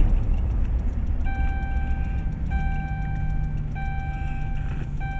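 Engine and road rumble inside a moving vehicle's cab. From about a second in, a steady electronic beep sounds in roughly one-second pulses with short gaps, repeating evenly.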